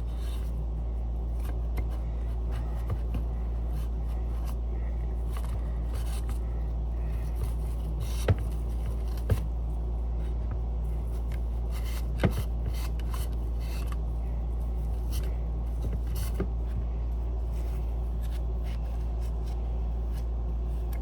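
Light scrapes, clicks and taps of a metal Simplex chime being handled and wiped down, over a steady low hum. A few sharper knocks come about eight, nine and twelve seconds in.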